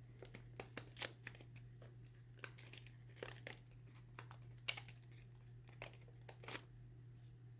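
Faint rustling and crinkling of a folded paper fidget ring being handled and turned, in scattered short bursts over a steady low hum.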